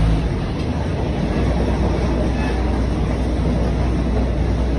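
Steady rumble and rattle of a diesel railcar train running, heard from inside its non-air-conditioned coach.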